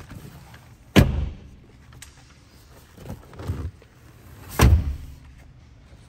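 Folding rear seatback of a Volkswagen Golf being swung up and latched into place: two solid thuds, about a second in and again a little past halfway, with lighter knocks between them.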